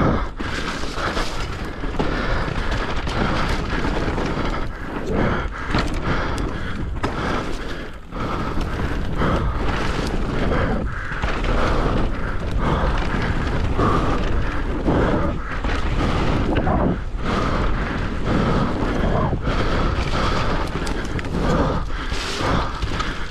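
Electric mountain bike ridden fast down a rough trail: steady wind rumble on the microphone, with the rattle of the bike and frequent knocks and jolts over bumps and berms.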